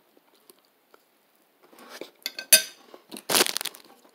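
Handling noise: crinkling rustles and sharp clicks, then a louder rustle near the end, as a plastic orange juice bottle is grabbed and lifted.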